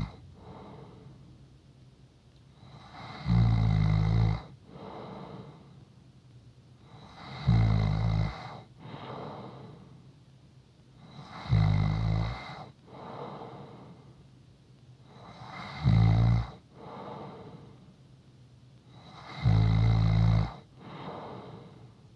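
A person snoring steadily in deep sleep: five loud, low snores about every four seconds, each followed a moment later by a softer breath.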